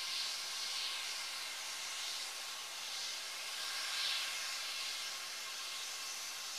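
Airbus A320's jet engines running at idle as the airliner taxis: a steady hiss that swells gently now and then.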